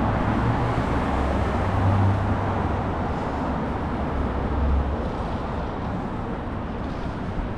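Traffic on a busy city street: a nearby vehicle's engine running low for about the first five seconds, then fading, over steady road noise.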